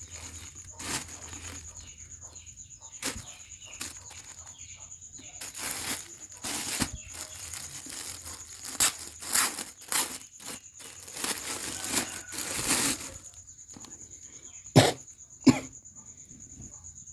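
Packaging being handled: irregular rustling and crinkling, with two sharp clicks in quick succession near the end.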